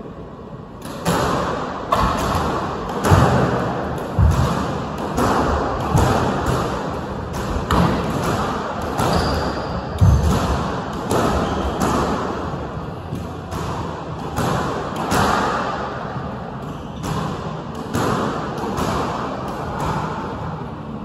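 Squash rally: the ball struck by rackets and smacking off the court walls, a run of sharp echoing knocks about once a second, starting about a second in.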